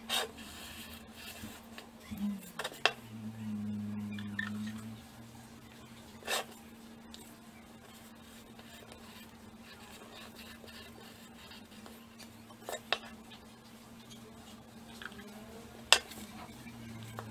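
Scattered sharp clicks and taps of a metal drafting compass and paper handled on a wooden workbench, over a steady low hum. A low drone drops in pitch about two seconds in and fades out near the five-second mark.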